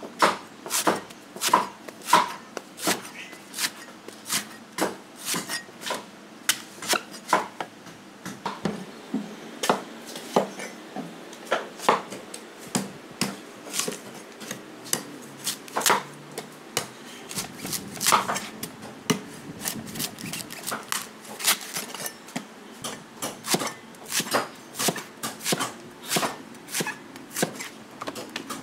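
Steel cleaver chopping and shaving the husk of young coconuts on a wooden chopping block: an irregular run of sharp chops, about two or three a second.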